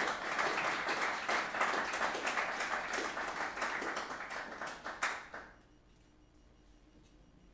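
Audience applauding, dense clapping that dies away about five seconds in, leaving quiet room tone.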